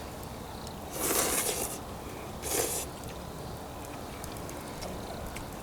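Two short slurps of ramen noodles, about a second apart.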